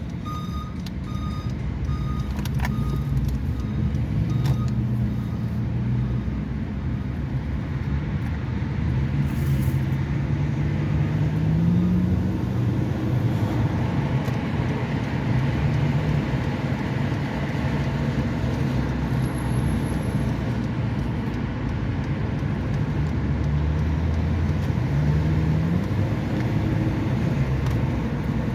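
Road traffic: vehicle engines running, rising in pitch twice as vehicles pull away, over a steady rumble. A truck's reversing alarm beeps about twice a second for the first couple of seconds, then stops.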